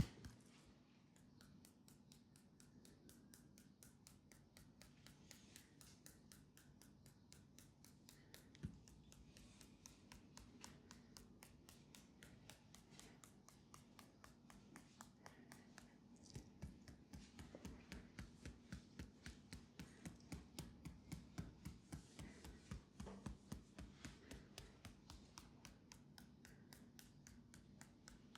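Faint, rapid rhythmic patting of hands on a leg as a percussive massage, about three pats a second, louder in the second half, with one single knock about nine seconds in.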